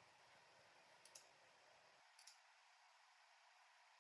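Near silence: room tone with faint computer-mouse clicks, a quick pair about a second in and another about two seconds in.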